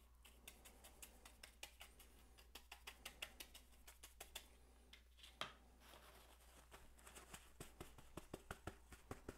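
Faint, irregular light taps and scratches of a paintbrush and paper towel dabbing oil paint onto an armor plate, a few a second, with one sharper tap about five and a half seconds in.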